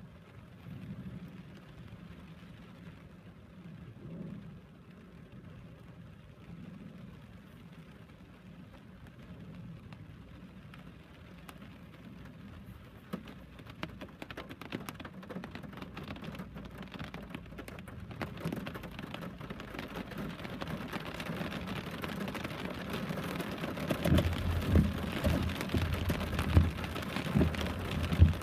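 Heavy rain, faint at first over a low hum, then growing steadily louder, with scattered drop taps from about halfway and heavy low thumps in the last few seconds.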